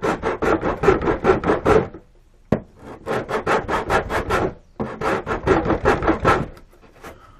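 Hand file rasping back and forth over hardened epoxy on a model plane's glued joint, clearing the excess: three runs of quick strokes, about five a second, with a single sharp knock between the first two runs.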